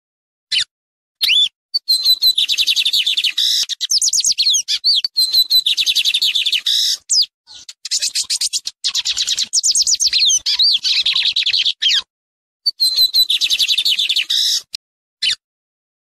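Male lined seedeater (bigodinho, Sporophila lineola) singing: a fast song of rapid high chirps and trills, in three long phrases with short pauses between, and a single short note near the start and near the end.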